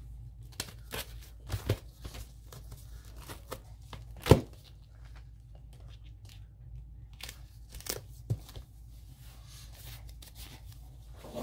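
Glued magazine paper handled with gloved hands: rustling and crinkling with scattered taps, the loudest a sharp tap about four seconds in.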